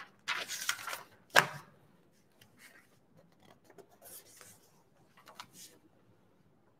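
A few short scrapes and rustles of something being handled, the loudest in the first second and a half, then fainter ones spaced out every second or so.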